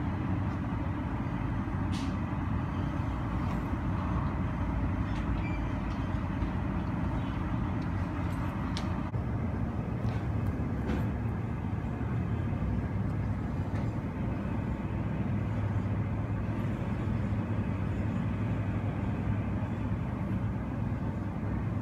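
Steady, muffled low rumble of airport apron noise (aircraft and ground vehicles) heard through terminal window glass, with a few faint clicks.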